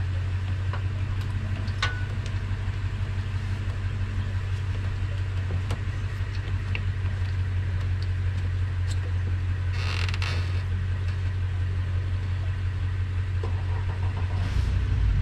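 An engine idling steadily as a low hum, with scattered small creaks and clicks and a short rushing noise about ten seconds in.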